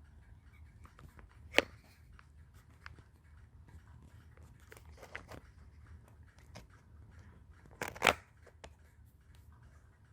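Hands handling a 3D-printed plastic clamp: scattered small clicks and rubbing, with two sharp plastic clacks, one about a second and a half in and a louder one about eight seconds in.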